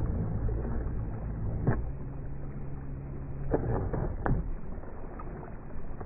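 Radio-controlled speedboat running over choppy water, a steady low drone under sharp slaps as the hull hops the chop: one a little under two seconds in and a quick cluster around four seconds in.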